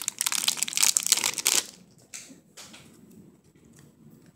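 Clear plastic wrap crinkling as it is pulled off a stack of trading cards. The crinkling is loud for about the first second and a half, then drops to a few soft rustles of the wrap and cards being handled.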